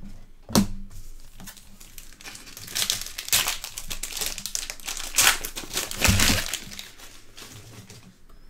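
Foil wrapper of a Donruss Optic trading-card pack being torn open and crinkled by hand, with a few seconds of crackling in the middle that fades near the end.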